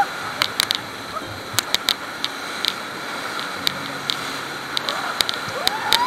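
Whitewater rushing around an inflatable raft in a river rapid, with many short sharp splash and spray knocks. Shouting voices come in near the end.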